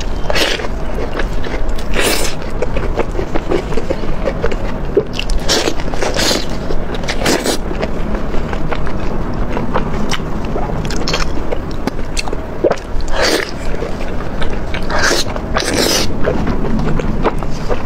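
Close-miked eating: a person biting and chewing chewy food in chili sauce, with a string of short, sharp wet mouth sounds every one to three seconds.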